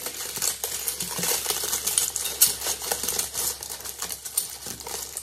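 Crinkled brown kraft wrapping paper crackling and rustling as it is pulled open by hand, in a dense run of irregular small clicks.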